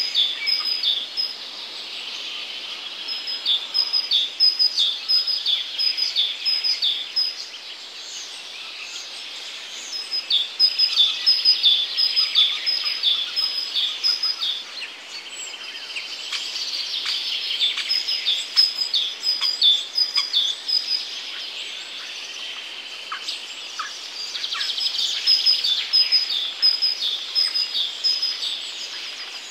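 Songbirds singing in repeated phrases of short, evenly spaced high chirps. Each phrase lasts a few seconds, with short pauses between, over a faint outdoor background hiss.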